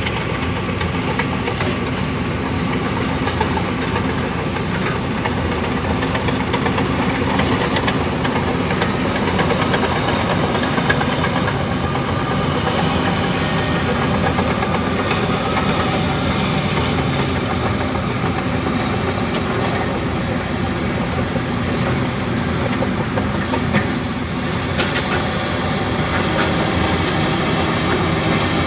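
Komatsu D65 bulldozer's diesel engine running steadily under load while it scrapes a muddy haul road.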